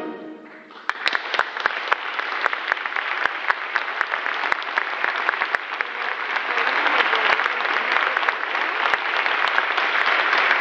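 An orchestra's final chord dies away in the hall's echo. About a second in, the audience bursts into applause that grows and carries on.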